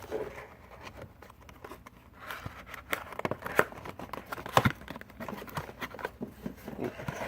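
A cardboard trading-card box being opened and a pack pulled from it: paper and cardboard rustling and crinkling, with scattered sharp clicks and taps. The sharpest comes about four and a half seconds in.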